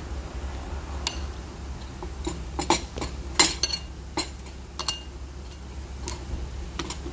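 Metal tongs clinking against a bowl and a steel pot while noodles and meat are arranged: a string of separate sharp clinks, the loudest about three and a half seconds in.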